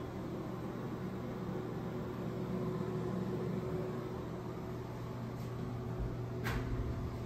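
Steady low mechanical hum, unchanging, with a single sharp click about six and a half seconds in.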